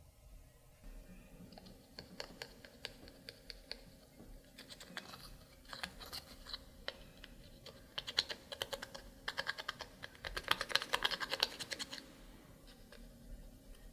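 Clear slime being squished and mixed, giving rapid runs of sticky clicks and pops from trapped air. The clicks are densest about eight seconds in and again from about ten to twelve seconds, then thin out.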